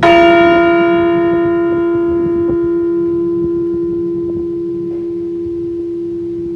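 A Liberty Bell replica struck once, tolling for a deceased veteran. After the single clang, the higher overtones die away over a few seconds while the deep hum rings on, slowly fading.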